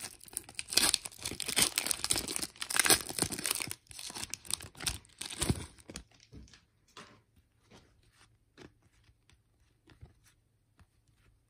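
Foil wrapper of a Panini Legacy football card pack being torn open and crinkled, dense and loud for about the first six seconds. After that, quieter scattered clicks and slides of the trading cards being handled and flipped through.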